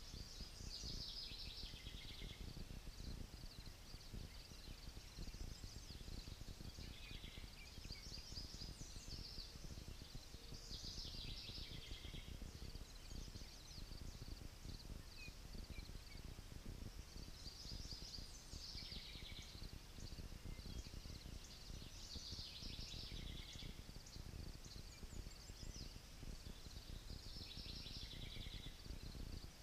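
A songbird singing a short, high, descending phrase over and over, every few seconds, over a low steady rumble of wind.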